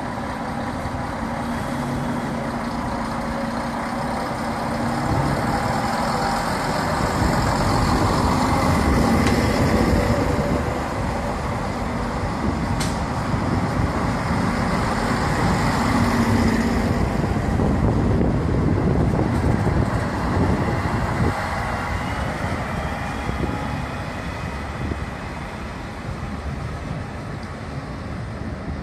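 Two coupled class 650 Regio-Shuttle diesel railcars, their underfloor diesel engines running and revving. The sound swells twice, then slowly fades as the train moves off. One short click about halfway through.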